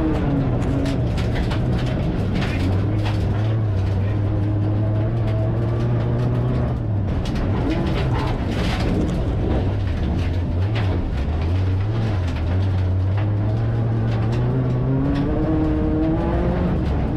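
Race car's engine heard from inside the cabin on a gravel track. The revs drop just after the start, hold through the middle and climb again near the end, with scattered knocks and clatter of gravel against the body.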